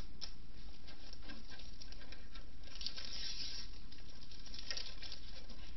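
Rustling and scraping as a computer case is handled, loudest about three seconds in and again near five seconds, over a steady low hum and hiss.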